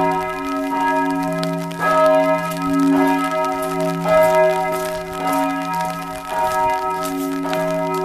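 Church bells ringing, a new stroke about once a second, each stroke's tone hanging on and overlapping the next.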